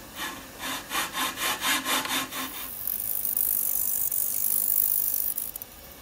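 Saw cutting a thin wooden ukulele side held in its mold: quick back-and-forth strokes, about six a second, for the first two and a half seconds, then a steady high hiss until near the end.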